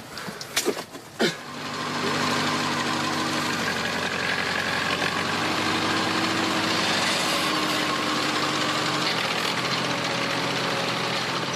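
A few sharp knocks, then a motor engine comes in about a second and a half in and runs steadily.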